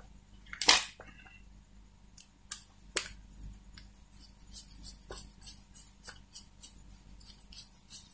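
Small screwdriver turning a screw to fix the replacement power-supply module's IC to its heatsink, with sharp metallic clicks and scrapes. There are a couple of louder clicks in the first three seconds, then many light, quick ticks in the second half.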